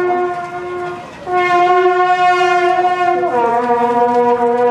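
Suona, the Chinese double-reed shawm of temple procession music, playing long held notes, with a brief break about a second in and a step down to a lower note just after three seconds in.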